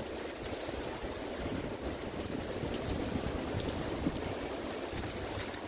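Wind buffeting the microphone outdoors: a steady rushing rumble with a few faint ticks.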